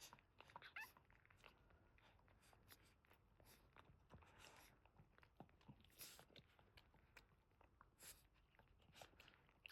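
Faint, scattered wet licking and smacking clicks from a Boston terrier mother licking her newborn puppies, near silence otherwise.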